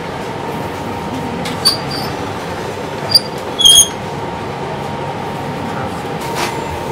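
Tortilla machine running with a steady hum while masa is rolled and cut into corn tortillas. A few short, high squeaks come through it about two and three seconds in, the last two the loudest.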